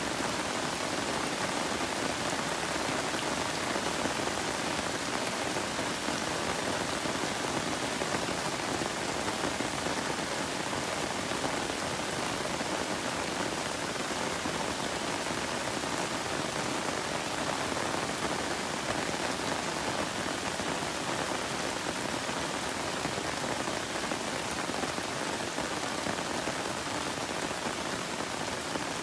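Steady rain falling on broad garden leaves and foliage, an even patter with no breaks.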